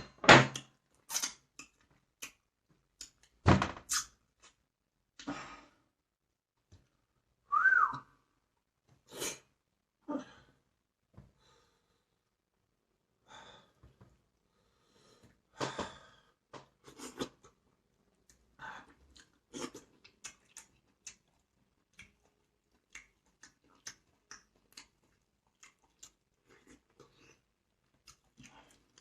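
Eating sounds: scattered bites, crunches and clicks with quiet gaps between them. There is one short high tone about eight seconds in that rises and then falls.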